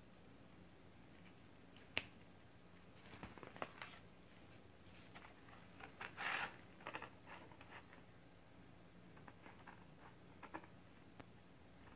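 Thin black plastic trash bag rustling and crinkling in short bursts as it is handled and folded over a kite frame, with one sharp click about two seconds in.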